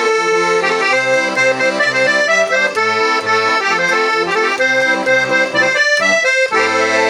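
Hohner Junior 40 accordion playing a tune: a right-hand melody over a steady left-hand bass-and-chord accompaniment. About six seconds in the playing breaks off briefly, then a chord is held.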